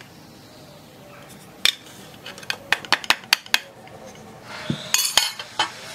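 Metal hand-held flour sifter being filled and worked over a plastic mixing jug: a run of sharp metallic clicks and clinks, then a steady rasping hiss with more clicks near the end as the flour is sifted.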